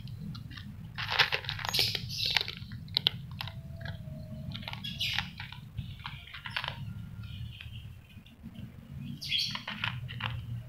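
An Angora cat crunching and chewing dry cat food, with irregular crisp crackles as it bites the kibble, over a steady low hum.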